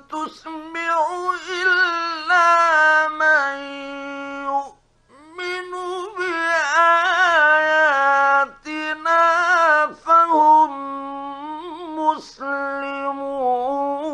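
A male Quran reciter chanting in the melodic mujawwad tajweed style, drawing out long ornamented notes that bend in pitch, with a breath pause about five seconds in. It is an archival 1956 Egyptian Radio recording.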